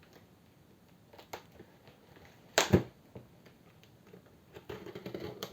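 Cardboard box and packaging being handled: a few light taps, two loud knocks in quick succession about two and a half seconds in, then crackling handling noise near the end.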